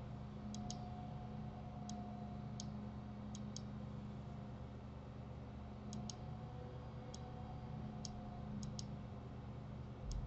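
Computer mouse button clicks, about a dozen spread unevenly, several in quick pairs, over a steady low electrical hum.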